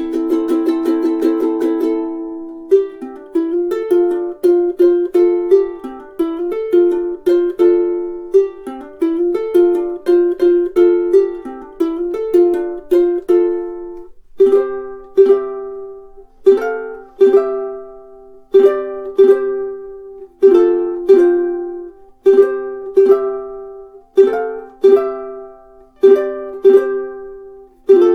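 Millar all-solid mahogany soprano ukulele being played solo. It opens on a strummed chord, then a run of quickly plucked notes, and from about halfway on chords are struck roughly once a second, each left to ring and fade.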